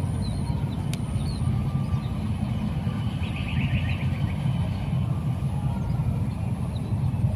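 Wind buffeting the microphone: a steady, gusting low rumble.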